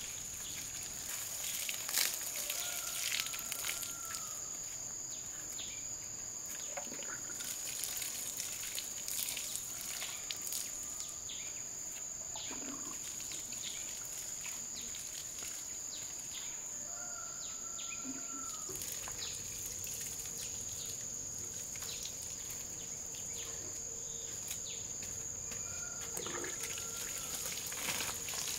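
Forest ambience: a steady high-pitched insect drone throughout, a bird's short call heard three times, and scattered light clicks and rustles. A lower steady hum joins about two-thirds of the way through.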